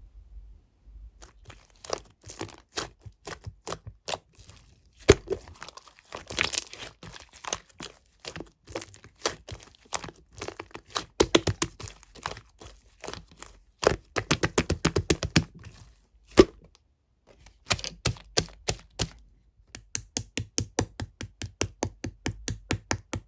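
Slime being squeezed and pressed by hand, giving a run of sharp pops and clicks. Near the end the pops come faster and more evenly, about four a second.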